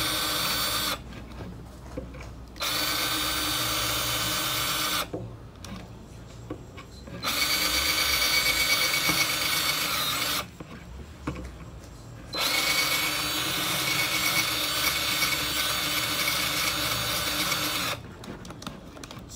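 A 20-volt cordless drill boring a hole through a laminated board in four runs of a steady motor whine, each starting with a short rise in pitch. The runs are short at first, and the last and longest lasts about five seconds.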